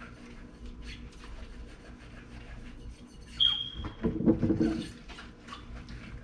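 Dishes being hand-washed in a sink with rubber gloves: quiet rubbing and scrubbing, then about three seconds in a dish clinks with a brief ring, followed by about a second of louder clattering of dishes.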